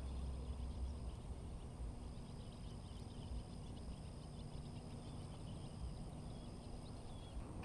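Quiet outdoor ambience: a low rumble, strongest in the first second, under a steady high-pitched whine and scattered faint bird chirps.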